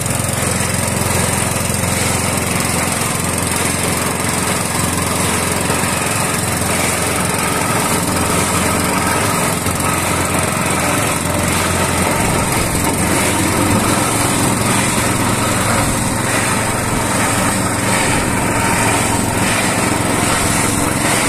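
Small single-cylinder petrol engine (170F, 7 hp) on a log splitter running steadily and loudly, belt-driving the splitter's flywheel.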